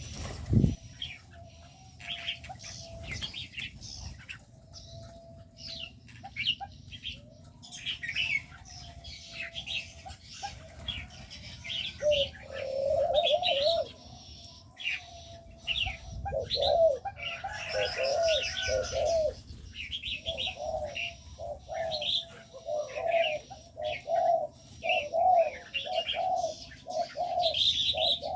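Spotted doves cooing in repeated low phrases, busier in the second half, over many short high chirps from smaller birds, with a single thump right at the start.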